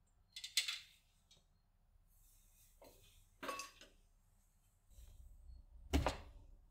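A bedsheet rustling and swishing as it is handled and shaken out, in three short bursts. The last and loudest is a swoosh with a soft thump as the sheet is flung over a metal clothes drying rack near the end.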